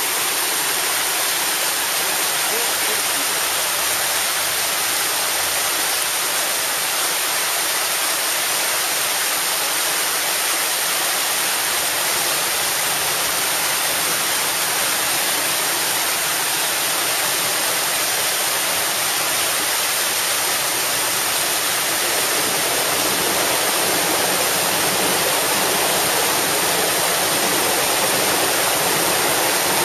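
Steady, unbroken rush of water falling over a small waterfall.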